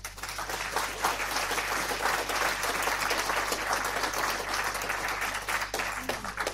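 Applause: dense clapping that swells in at the start, holds, and fades out near the end.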